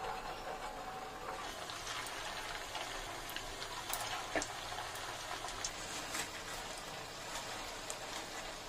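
Hot oil sizzling around semolina gulab jamun dough balls as they deep-fry: a steady hiss with scattered small pops and crackles.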